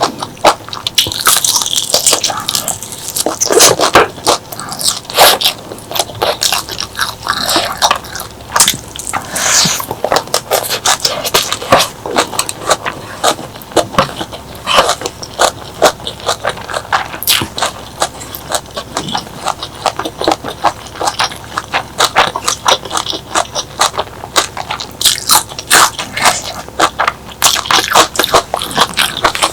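Close-miked eating sounds: crunchy bites and chewing of crisp food, a dense run of crackling crunches.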